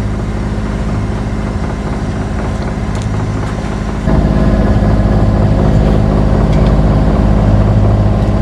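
Sailboat's inboard engine running steadily under way, a low even hum with water and wind noise over it; it gets louder about four seconds in.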